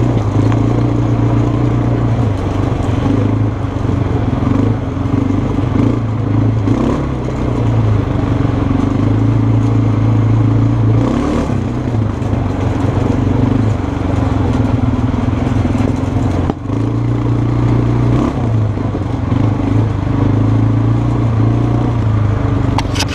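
Kymco 300 quad's engine running close to the microphone at a fairly steady trail pace. The engine note dips and rises several times as the throttle is eased and opened, with one brief drop in level about two-thirds of the way through, and the body clatters over the rough ground.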